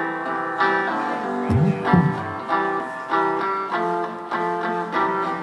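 Guitar playing the chords of a band's song in steady repeated strokes, with a brief low gliding sound about a second and a half in.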